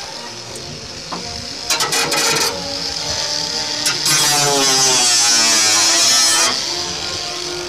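Makita 18 V cordless angle grinder's cutting disc slicing through galvanised corrugated steel roofing sheet. The grinder whines as it spins, with a short burst of cutting about two seconds in and a longer, louder cut from about four seconds in. During the long cut the motor's pitch sags under load and recovers.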